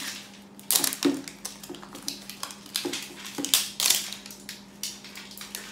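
Crinkly wrapping on an LOL Surprise toy ball being peeled and torn off by hand, a rapid run of short crackling and rustling bursts.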